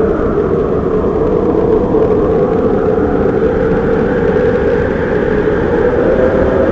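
Tornado wind roaring steadily, with a howling tone that wavers and rises slightly near the end.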